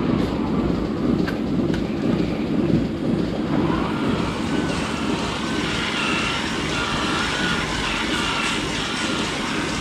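Steady running of farm machinery, a continuous low rumble, with faint wavering higher tones joining from about four seconds in.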